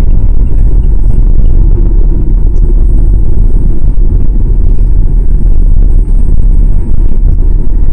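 Loud, steady low rumble inside the cabin of a Boeing 787-9 Dreamliner on its landing roll down the runway.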